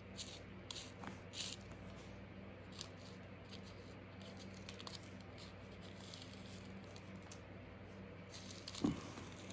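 Faint rustling and crinkling of a cigarette rolling paper and loose tobacco being spread and pressed by fingers, in short scattered scrapes, over a steady low electrical hum.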